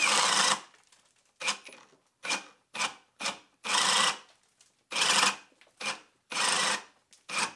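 Ryobi cordless hammer drill on speed 2 boring a spade bit into a thick wooden beam, cutting in about a dozen short bursts with silent gaps between. The bit keeps binding and the drill bogs down and stalls, unable to finish the hole on speed 2.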